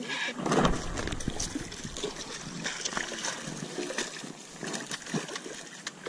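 Water trickling and splashing, with scattered small knocks and clicks and one louder low thump about half a second in.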